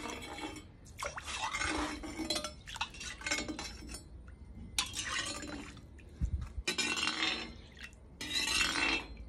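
Hot sunflower oil sloshing around inside a cast-iron kazan as it is tilted and swirled to season it, in repeated surges every second or two, with light clinks of metal.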